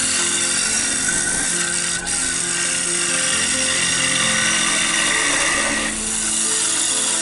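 Gouge cutting into the inside of a spinning wooden bowl on a King KWL-813VS variable-speed wood lathe: a steady hissing cut as shavings peel off, dipping briefly near the end. Background music with a changing melody plays throughout.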